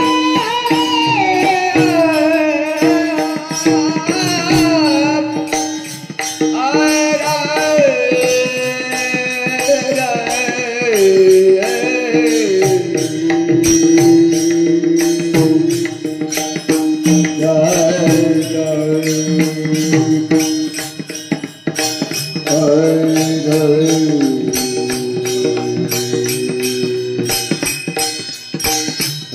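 Marathi devotional abhang singing: a solo voice holding long notes and sliding through ornamented melodic runs, with percussion tapping a steady beat underneath.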